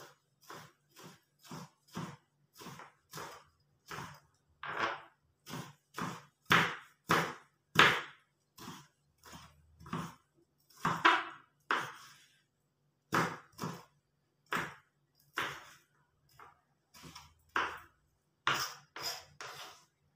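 Kitchen knife chopping food on a wooden cutting board: a run of separate, uneven knocks of the blade on the wood, about one or two a second, some louder than others.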